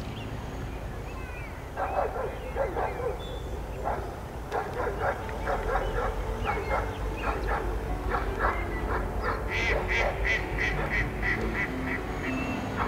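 Geese honking in quick runs of repeated calls, starting about two seconds in and loudest near the end.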